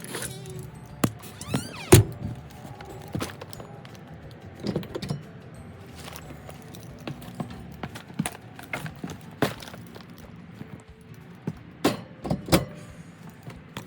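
Clatter of household items being handled and set down: irregular clicks and knocks, with one loud thunk about two seconds in and a few more knocks near the end.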